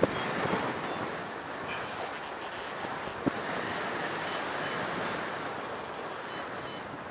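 Wind rushing over an action camera's microphone on a paraglider in flight: a steady rushing that swells and eases, with a short click about three seconds in.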